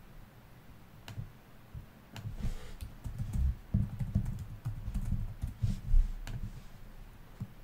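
Typing on a computer keyboard: a quick run of keystrokes, with a single louder click near the end.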